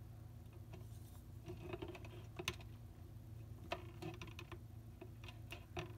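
Faint scattered clicks and taps of a wooden popsicle-stick frame being handled and pressed against a tabletop, over a steady low hum.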